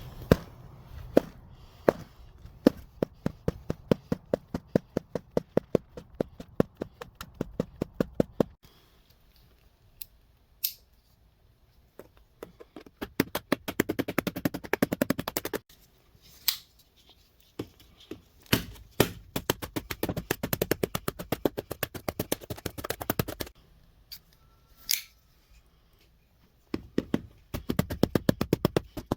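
Taped cardboard box being worked open: runs of quick sharp clicks and snaps, with short pauses between the runs.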